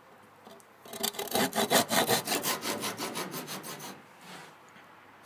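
Tenon saw cutting a slot through a wooden boat stem: a run of quick back-and-forth hand-saw strokes starting about a second in, lasting about three seconds and fading as the cut ends.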